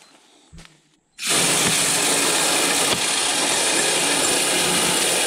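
Texas Hunter hanging spin feeder test-running: its 12-volt spinner motor whirls and flings corn out through the wire cage under the hopper, a loud, steady whirring rattle that starts suddenly about a second in.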